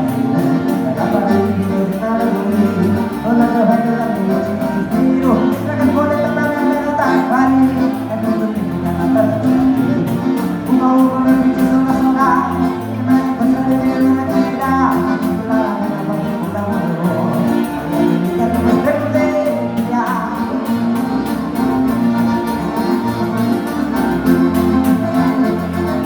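Live gaúcho dance-band music, led by button accordion, with a steady bass beat.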